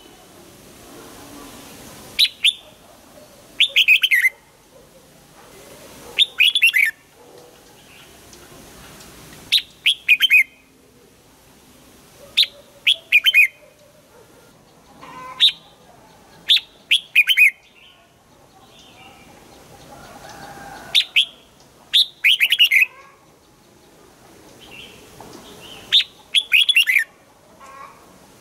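Red-whiskered bulbul singing: short, bright phrases of quick falling notes, each about half a second long, repeated every one to three seconds.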